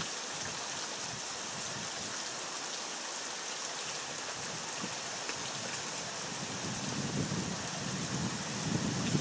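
Steady heavy rain, an even hiss. About seven seconds in, a low rumble of thunder starts to build under it.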